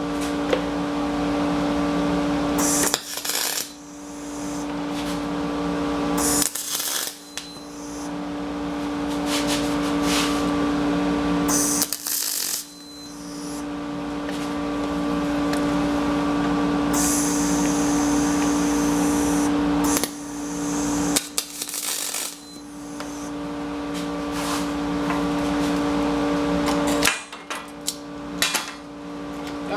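Aluminum MIG welding with a spool gun, tacking a flat plate onto a skid plate: the arc runs in five stretches of a few seconds each, with steady hum and hiss and short breaks between. A few sharp metallic clicks follow near the end.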